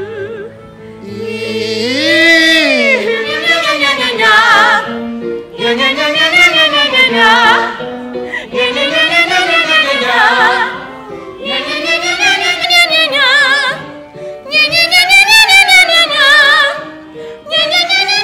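Singers doing a vocal warm-up. Their voices slide up and then back down in repeated arching phrases, about one every two seconds, with vibrato on the high notes.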